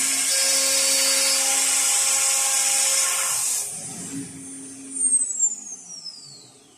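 Aluminium CNC machining centre's spindle running under cut with a loud, steady high-pitched hiss and whine, which stops a little past halfway. About five seconds in there is a short loud rattle, then the spindle winds down with a falling whine.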